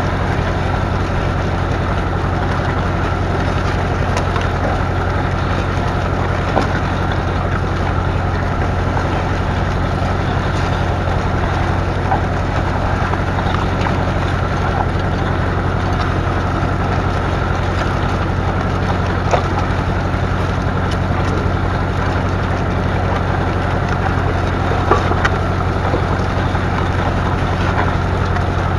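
The 2.5-litre four-cylinder diesel engine of a McCormick 434 tractor running steadily, a constant low hum with no change in speed.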